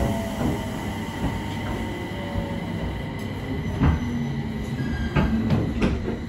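Interior of a JR 701-series electric train drawing slowly into a station: steady running rumble with faint held tones, and a few sharp knocks from the wheels, the loudest about four seconds in.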